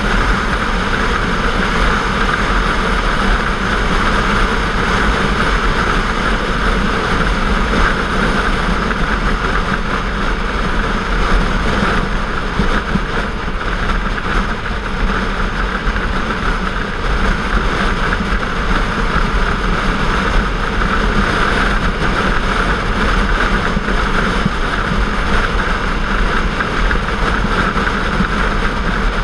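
Sport motorcycle cruising at a steady highway speed: a constant engine drone under a steady rush of wind over the microphone, with no revving or gear changes.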